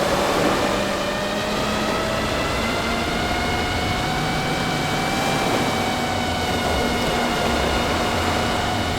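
DJI FPV drone's motors and propellers whining steadily in flight over a rush of air, the pitch rising slowly through the first half.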